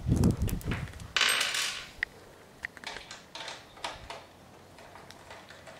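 Metal clinks and a short rattle of bicycle bolts, nuts and hand tools as the seat bolts are fitted. A few dull knocks come first, the rattle about a second in, then scattered light clicks.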